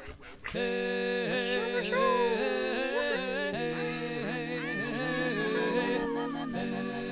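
Music starting about half a second in: held chords with a wordless, voice-like melody gliding over them.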